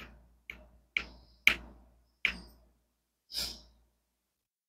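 A few sharp plastic clicks and taps about half a second apart from a diamond painting drill pen and drill tray being handled, then a softer breathy sound.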